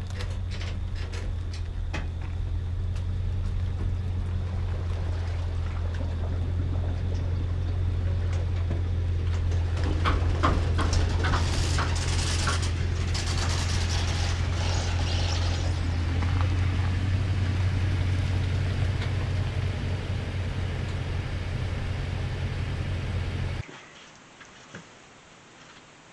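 An engine running steadily with a low, even drone, with stretches of rushing noise over it for several seconds in the middle; it cuts off abruptly a few seconds before the end.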